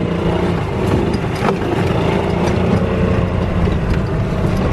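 Golf cart running steadily as it is driven across grass, its engine giving a continuous low drone.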